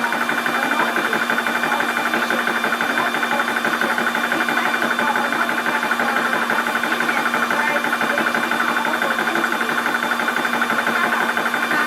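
12 V portable 4500 psi PCP air compressor running under load while filling a high-pressure air cylinder: a steady, fast piston chatter with a constant whine over it.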